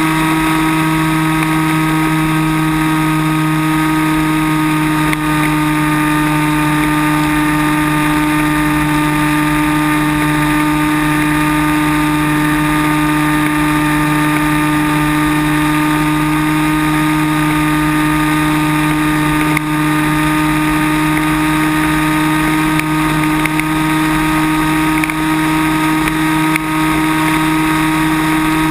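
Multiplex Cularis electric glider's motor and propeller running at steady throttle, heard from a camera on board: a steady whine of several held tones that does not change pitch, over the rush of air past the plane.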